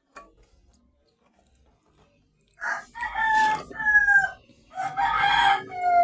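A rooster crowing twice, starting about two and a half seconds in, each crow ending on a long falling note.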